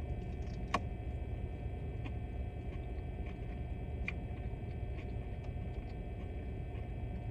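Faint scattered mouth clicks and chewing sounds from someone eating, over a steady low hum.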